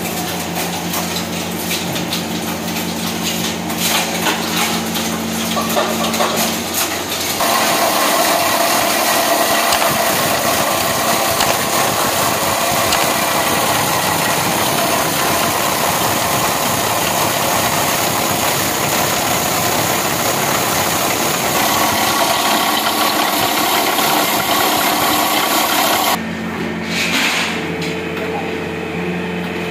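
Plastic granulator grinding scrap plastic into flakes: a loud, dense grinding noise starts about seven seconds in and stops abruptly a few seconds before the end, over a steady machine hum.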